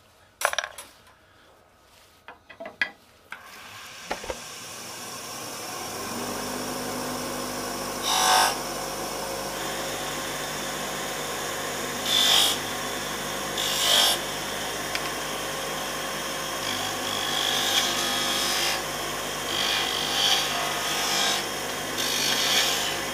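A wood lathe's motor comes up to speed after a few clicks and then runs with a steady hum. A narrow parting tool cuts into the spinning wood blank in several short scraping bursts, grooving it into bead lengths.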